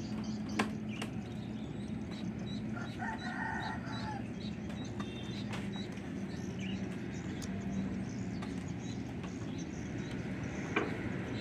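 A rooster crows once, about three seconds in, over a steady low hum, with faint high chirps repeating throughout.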